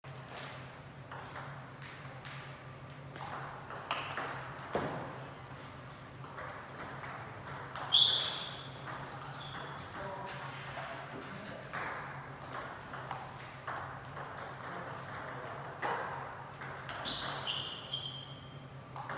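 Table tennis ball clicking off bats and the table during rallies, in a reverberant sports hall. A few short high squeaks, most likely shoes on the sports floor, with the loudest about eight seconds in and two more near the end.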